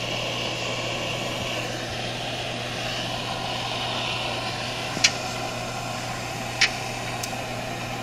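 Hand-held gas torch burning with a steady hiss while it heats a copper pipe joint for soft soldering. Two sharp clicks stand out, about five seconds in and again a second and a half later.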